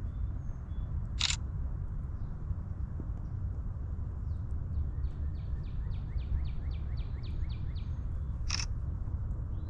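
A bird singing a run of about a dozen quick repeated high notes in the middle, over a steady low rumble. Two short sharp clicks stand out, one near the start and one near the end.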